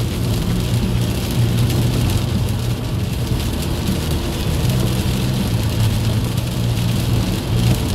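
Car cabin noise at motorway speed on a rain-soaked road: a steady low drone from the engine and road, with the hiss of tyres running through water on the newly laid asphalt, which fails to drain.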